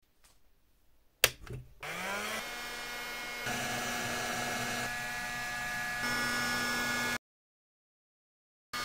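A heat gun (construction hot-air gun) starting up: a click, then its fan motor spins up with a rising whine and runs on with a steady hum. It stops abruptly about seven seconds in.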